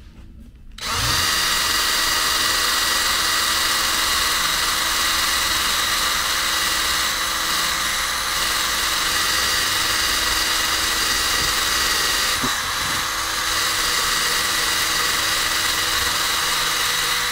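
A drill spins a rubber nipple eraser pressed against a rubber grille seal, rubbing off old adhesive tape residue. The drill starts about a second in, runs steadily with a brief dip about twelve seconds in, and stops suddenly at the end.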